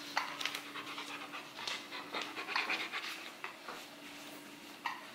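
Rottweiler panting, a run of quick, uneven breaths.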